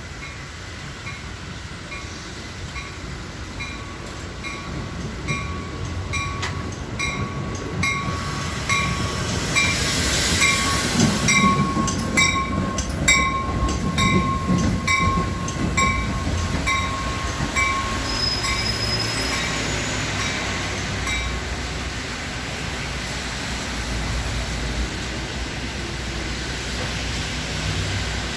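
Metra commuter train pulling into the station, its rumble and wheel clatter building to a peak about halfway through, while a bell rings about twice a second and stops about three-quarters of the way in. A brief high squeal, typical of braking, sounds shortly before the bell stops.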